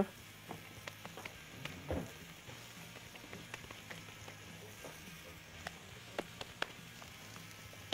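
Kofta patties sizzling faintly on a hot ridged grill plate, a steady hiss with scattered small crackles.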